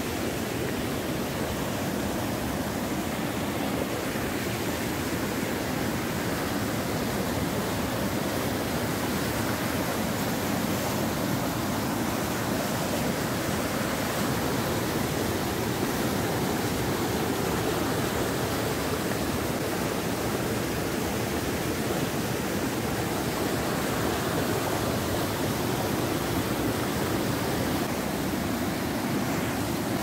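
Rain-swollen mountain stream cascading over a rocky waterfall: a steady, loud rush of churning whitewater.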